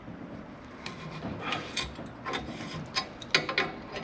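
Thread tap being turned by hand with an adjustable wrench in a bushing in a gyrocopter rotor hub bar: scattered metallic clicks and scraping creaks as the tap cuts and the wrench shifts on it, the loudest about a second and a half in and again a little after three seconds.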